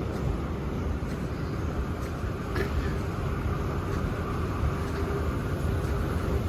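Steady low rumble of a vehicle in motion, with a faint steady hum and no distinct events.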